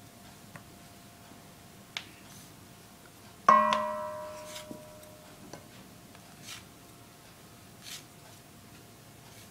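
A metal cookie cutter clinks once against a hard surface about three and a half seconds in and rings out for over a second. Faint clicks and soft scrapes of the cutter pressing through rolled dough come before and after.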